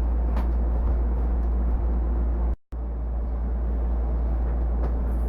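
Kitchen tap running while dishes are washed by hand: a steady rushing hiss over a low rumble. It cuts out for an instant about two and a half seconds in, then carries on unchanged.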